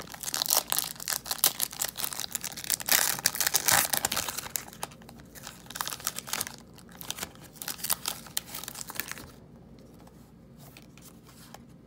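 Foil-and-plastic Pokémon card pack wrapper being torn open and crinkled by hand, a dense crackling for the first few seconds that thins out and goes quiet about nine seconds in.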